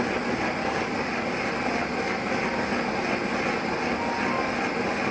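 Handheld gas torch burning with a steady hiss as its flame plays on a small bronze casting.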